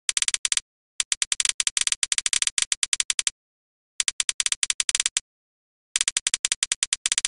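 Typing on a computer keyboard: rapid runs of key clicks, about eight to ten a second, in four bursts separated by short pauses.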